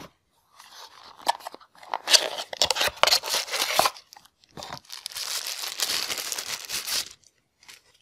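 Thin tissue-paper packing wrap crinkling and rustling as hands pull it out and unwrap it, in several bursts. The loudest come about two to four seconds in and again from about five to seven seconds.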